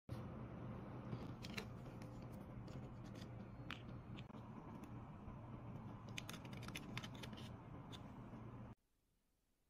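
Small sharp clicks and taps of a plastic micro SD card reader being handled, scattered irregularly over a steady low hum. The sound cuts off suddenly near the end.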